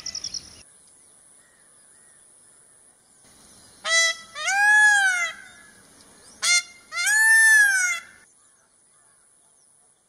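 Peacock (Indian peafowl) calling twice, about four seconds in and again two and a half seconds later. Each call is a short sharp note followed by a long wail that rises and then falls.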